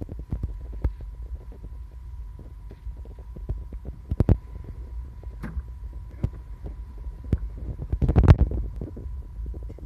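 Clicks and knocks of laboratory microwave-extraction vessels and their rotor being handled, over a steady low hum with a faint high tone; the knocks are loudest about eight seconds in.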